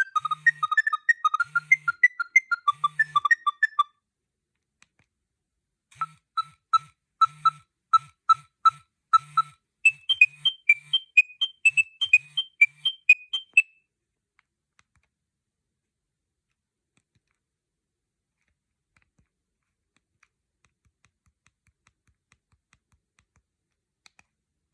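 Nokia 6610 monophonic ringtones beeping from the phone's speaker: one melody ends about four seconds in, and after a short pause another melody of short beeping notes plays for about eight seconds and stops. A few faint clicks follow near the end.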